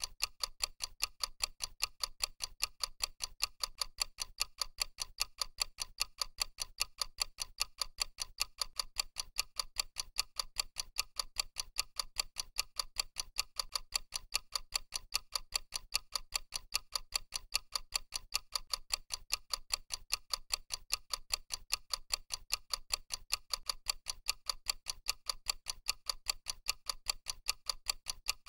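Clock-ticking sound effect of a countdown timer: a steady, evenly spaced tick that keeps going while the timer counts down.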